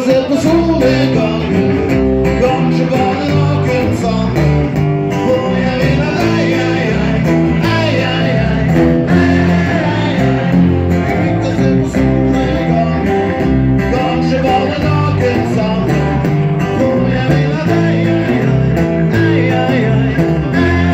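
Live band playing a song on two acoustic guitars and an electric bass guitar, with a man singing lead.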